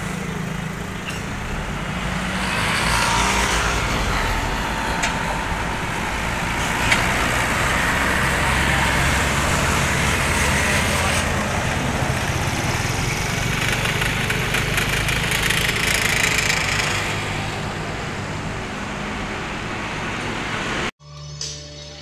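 Large tour bus's diesel engine running close by as the bus pulls in, a steady low drone with road and crowd noise around it. It cuts off abruptly near the end.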